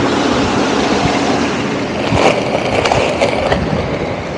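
Skateboard wheels rolling over rough concrete, a steady rumble with a few sharp clacks about two to three and a half seconds in as the wheels run over cracks and joints.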